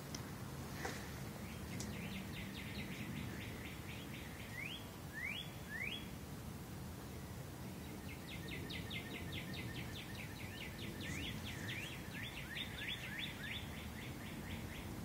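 Small songbirds calling: two long runs of quick, evenly spaced high chirps, about five or six a second, with three short rising notes in between.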